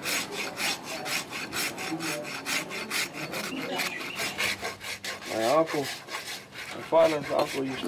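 Farrier's hoof rasp stroked back and forth across a mule's hoof, quick even rasping strokes about three or four a second, trimming the sole and wall before shoeing.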